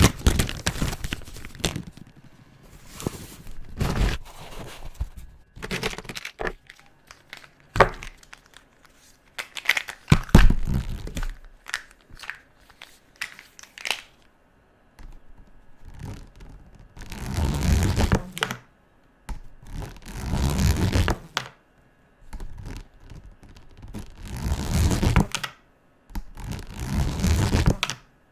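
Felt-tip marker rubbing back and forth across paper in repeated bursts of colouring, with a few sharp knocks in between. The bursts get longer in the second half, each lasting about a second and a half.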